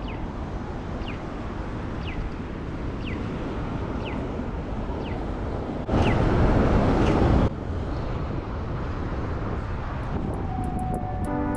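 Street ambience with traffic and wind on the microphone, with a short high falling chirp repeating about once a second. A louder rush of noise comes about six seconds in and lasts about a second and a half.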